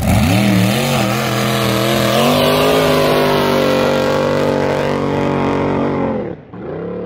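An engine revving as a logo intro sound effect: its pitch climbs over the first couple of seconds and holds high, drops off sharply about six seconds in, then rises again into a second, shorter rev.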